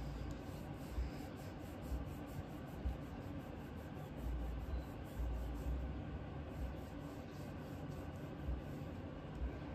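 Cloth rubbing back and forth over the bare steel of a Remington 1100 shotgun during cold bluing, a steady scratchy wiping with a few soft knocks from handling the gun.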